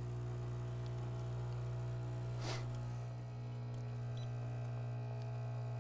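Vibratory pump of a Profitec Pro 400 espresso machine buzzing steadily as it pushes water through the puck during a shot, with a brief faint noise about two and a half seconds in.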